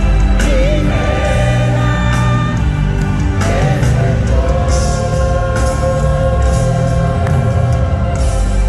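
Live gospel music: singers holding long, wavering notes over a steady band accompaniment with a deep bass.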